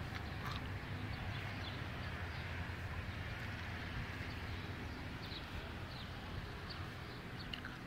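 A steady low hum with scattered faint, short bird chirps.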